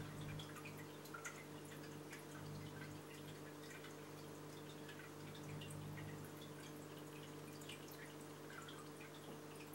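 Aquarium water circulating: faint, irregular trickling and dripping with many small scattered pops, over a steady low hum.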